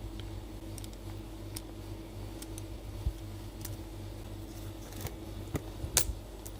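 Scattered light clicks and taps of a small screwdriver and screws being worked on a laptop's hinge screws, with a dull knock about three seconds in and the sharpest click about six seconds in, over a steady low hum.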